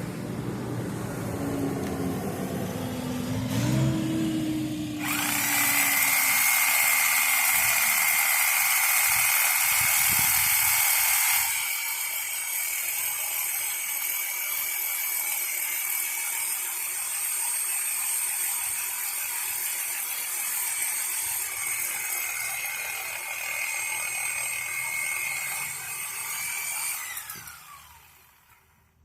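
Power saw cutting into a downed tree. A steady high whine with hiss starts about five seconds in, eases slightly partway through, then winds down near the end and stops.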